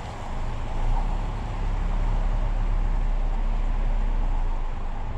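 Estate car towing a motorcycle trailer driving slowly past and away over brick paving: a steady low engine and tyre rumble.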